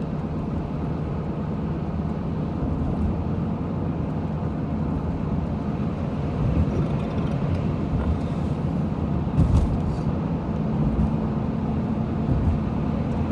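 Steady road and engine rumble heard from inside a moving car, with a brief thump about nine and a half seconds in.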